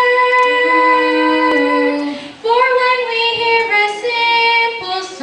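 Two children, a boy and a girl, singing a duet into microphones, holding long notes. A brief break about two seconds in, then the next phrase begins.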